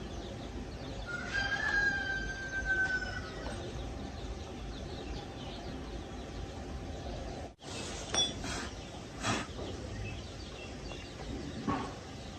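Rooster crowing once, a long held call that starts about a second in and sags slightly in pitch at its end. A few short knocks follow later.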